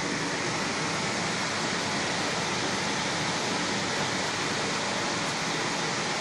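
Meiko EcoStar 530F commercial dishwasher running a wash cycle: a steady hiss of water spraying inside the cabinet, with a faint steady whine from the machine.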